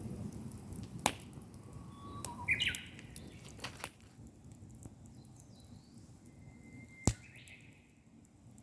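Small birds chirping: two short calls a few seconds apart, the first near the start and the second near the end. Two sharp clicks come, one about a second in and one just before the second call.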